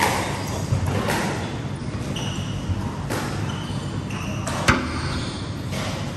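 Squash ball being struck by rackets and slamming off the court walls during a rally: several sharp cracks at irregular gaps, the loudest about three-quarters of the way through, with short high squeaks of court shoes on the wooden floor in between.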